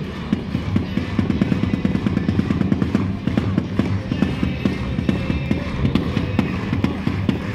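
Football crowd clapping, a dense irregular patter of claps, over music from the stadium loudspeakers.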